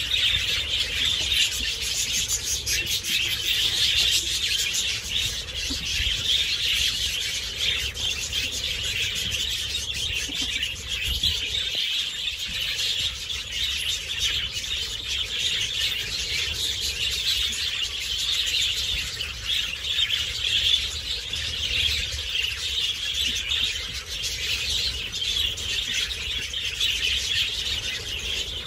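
A large flock of budgerigars chattering and warbling together in a dense, unbroken chorus.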